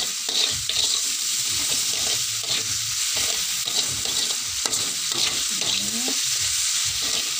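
A metal spatula stirring and scraping oyster mushrooms and chopped vegetables around a metal wok in repeated strokes, over a steady sizzle of the food frying in hot oil.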